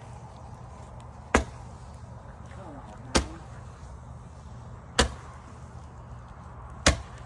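Handheld Roman candle firing four sharp pops, evenly spaced just under two seconds apart. Each pop launches a burning star.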